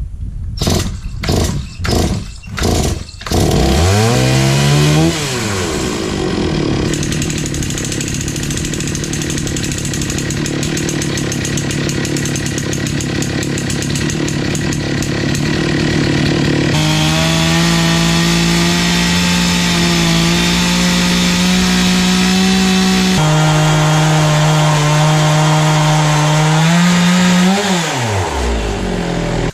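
Stihl MS 460 chainsaw with a 36-inch bar and ripping chain on a Granberg Alaskan mill: after a quick series of rasps the engine catches and revs up. It runs at a steady high speed, ripping a log with small shifts in pitch under load, then revs briefly and winds down to a stop near the end.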